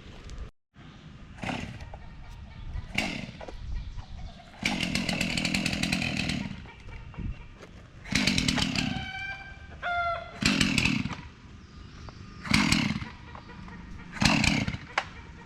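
Chainsaw revved in several short bursts of throttle, the longest about a second and a half.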